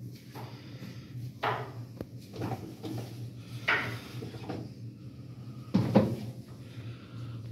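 Plastic storage bins and drawers being handled and slid, giving about five short scrapes and knocks, the loudest near the end, over a steady low hum.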